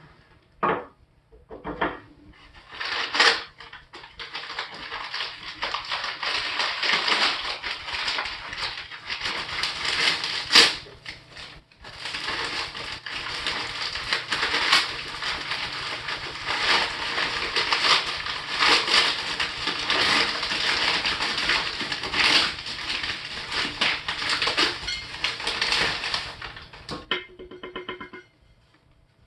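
Packaging being opened by hand: a few sharp crackles, then long continuous crinkling and rustling of wrapping material with a brief pause partway through, stopping abruptly near the end.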